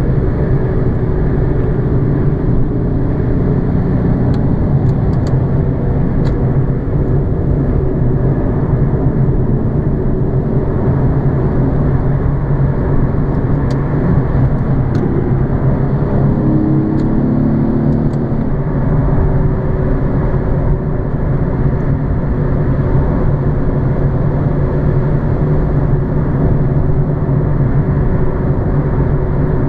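Nissan 370Z's 3.7-litre V6 cruising at a steady highway speed, heard from inside the cabin as an even engine drone over tyre and road noise.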